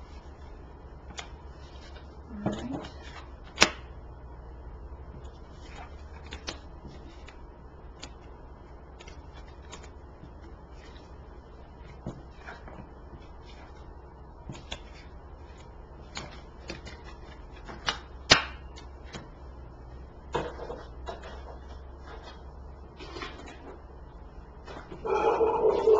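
Tarot cards being handled, shuffled in the hands and dealt out onto a cloth: scattered soft taps and card clicks, with two sharper clicks, over a steady low hum.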